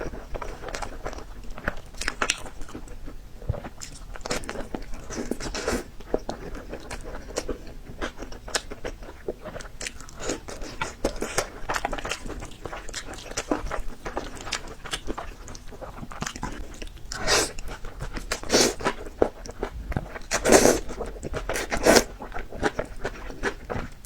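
A person biting and chewing crisp peppers close to the microphone: repeated wet crunches and crackles, with the loudest bites near the end.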